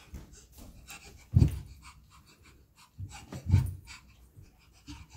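Thumps and rubbing of a toddler climbing carpeted stairs on hands and knees, with two heavy thumps, one about a second and a half in and another about three and a half seconds in.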